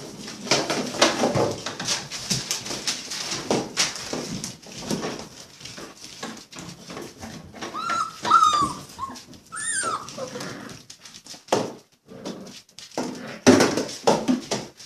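Five-and-a-half-week-old Labrador puppies at play: constant scuffling, clicks and rattles from paws and toys, with short high puppy whimpers about eight and ten seconds in.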